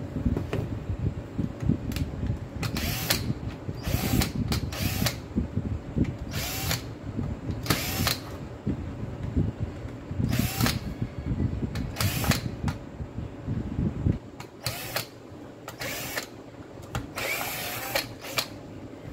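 Plastic housing and motor parts of a Makita DDF446 cordless drill being handled and fitted together: irregular clicks and knocks, some with a short squeak, over a low handling rumble that stops about fourteen seconds in.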